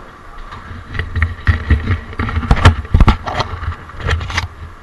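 A quick run of sharp knocks, clatters and scrapes of gear being handled close to the microphone, with dull thumps underneath, loudest in the middle.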